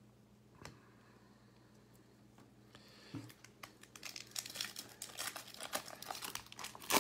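Foil wrapper of a baseball card pack being torn open and crinkled: quiet at first, then a dense crackle starting about three seconds in, with a sharp snap at the end.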